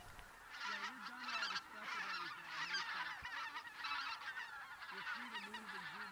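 A flock of geese honking in flight, many short high calls overlapping continuously.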